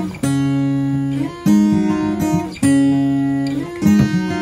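Background music: acoustic guitar strummed chords, changing about every second.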